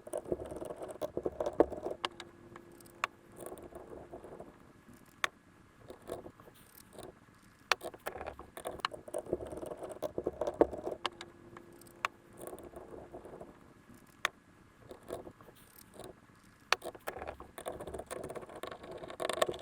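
Bolts being run down into a billet steering rack housing: bursts of rattly tool noise that start and stop every second or two, with scattered sharp metal clicks.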